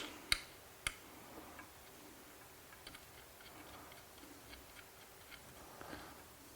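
Two sharp clicks about half a second apart from small seat-rail parts being handled, followed by faint, scattered light ticks and taps.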